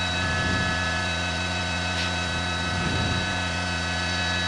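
Steady drone of a helicopter's engine and rotor, with several constant whining tones over a low rumble.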